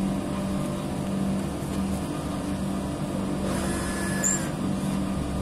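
Large rooftop air-conditioning unit running with a steady low hum. A brief scratchy noise comes about three and a half seconds in.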